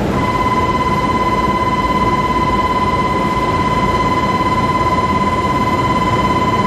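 A steady, high-pitched buzzer tone with ringing overtones comes on at the start and holds, over a constant hiss of wind and rail-yard noise.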